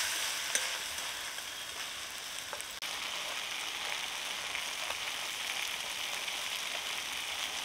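Spice paste of onion, garlic, ginger, chili, coriander and turmeric frying in hot oil in a kadai, a splash of water just added: a steady sizzle with a few light clicks, cutting out briefly about three seconds in.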